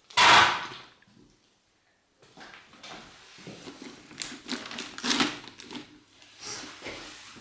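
A plastic blender jar being handled, lifted off its motor base and set back on it. There is a short, loud clatter at the start, then a run of light knocks and bumps.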